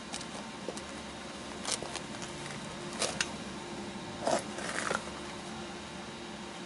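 A few short, sharp clicks and knocks of gear being handled by hand, over a steady low hum.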